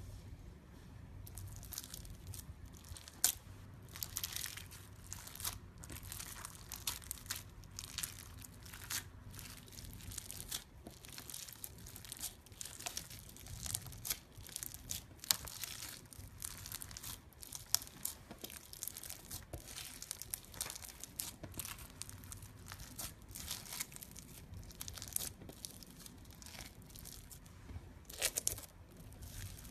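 Bead-filled slime squeezed and poked by fingers, giving dense, irregular crackling and crunching pops that start about a second in.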